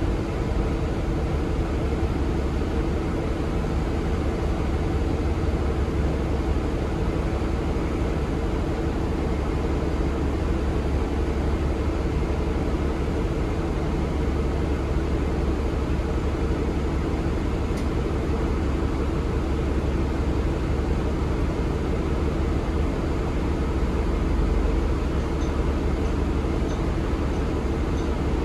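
Steady cabin noise inside a Nova Bus LFS city bus: the Cummins L9 diesel engine runs with a deep continuous rumble and a steady drone, without clear revs or gear changes.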